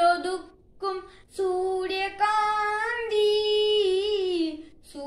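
A boy singing a Malayalam song unaccompanied, in long held notes with short breaks between phrases.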